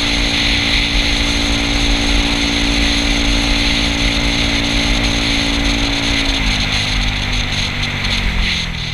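Yamaha Cygnus scooter's single-cylinder four-stroke engine running at a steady cruising speed over a constant rush of wind and road noise; from about six seconds in its pitch drops in steps as the throttle eases off for a bend.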